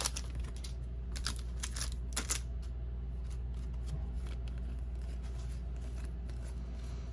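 Trading cards being handled and flicked through: a few brief rustles and flicks in the first two and a half seconds, fainter ones after, over a steady low hum.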